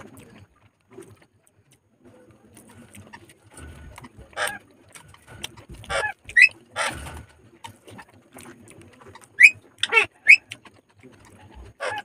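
Close-up eating sounds of a person eating rice and chicken by hand: chewing and lip smacking in short, sharp bursts, with some short high squeaky sounds among them.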